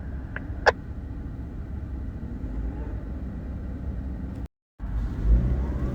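A vehicle engine runs with a steady low rumble, with two short clicks about half a second in. Near the end the sound drops out completely for a moment, then the rumble comes back louder.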